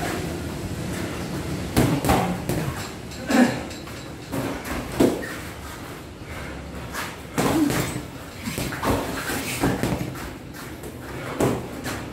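Boxing gloves landing in sparring: about ten sharp thuds at irregular intervals as punches hit gloves and headgear.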